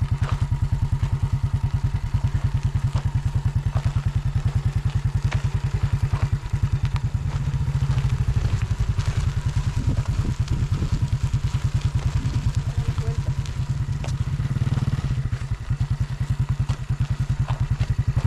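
A small 150 cc single-cylinder motorcycle engine running at low revs in first gear with a steady, even pulse. It picks up and eases off a little as the throttle is opened and released.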